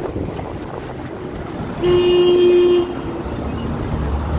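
A vehicle horn sounds one steady blast of about a second, a little under two seconds in, over the steady noise of street traffic; a low traffic rumble builds near the end.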